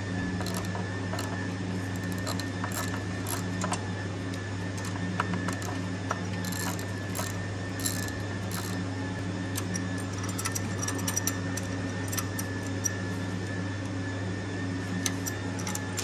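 Hand tools clicking and ticking against metal in a scattered, irregular run as the clamp on the turbocharger is worked loose, over a steady low hum.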